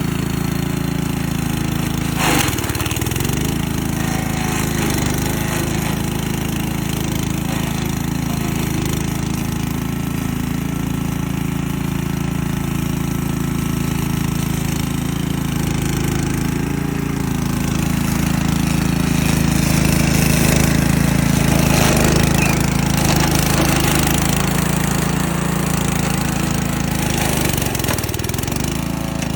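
Petrol engine of a remote-control lawn mower running steadily. Its speed dips briefly and recovers about two seconds in and again near the end.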